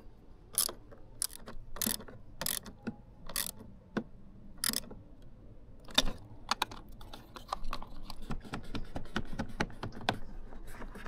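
Sharp mechanical clicks and snaps of small parts being handled: single strokes about half a second apart at first, then a quicker, denser run of small clicks from about halfway through.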